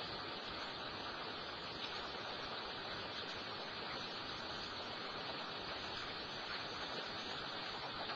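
Steady rushing background noise, even and unbroken, with one faint tick about two seconds in.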